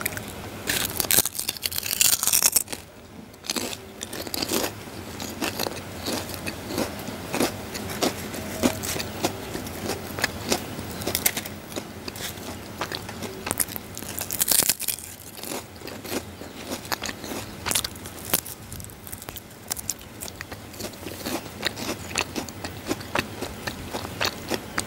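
Jicama chips bitten and chewed close to the microphone, ASMR-style: a dense, irregular run of crisp crunches.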